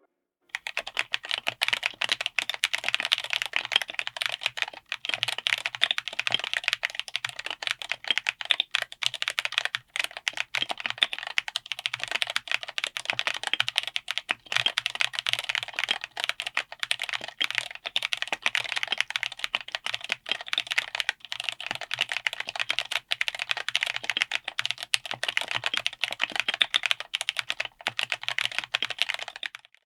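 Fast, continuous typing on a mechanical keyboard fitted with Ajazz Blue Sky tactile switches on an FR4 plate in a Tofu60 aluminium case: a dense run of keystroke clacks, with a few brief pauses.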